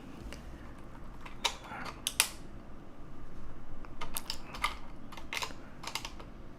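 Plastic keycaps on a Corsair keyboard being pulled off and pressed onto the key switches by hand: irregular sharp plastic clicks and snaps, in two clusters a couple of seconds apart.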